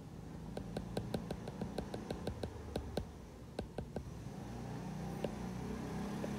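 A run of light, quick clicks, about five a second, stopping about four seconds in. A low steady hum follows.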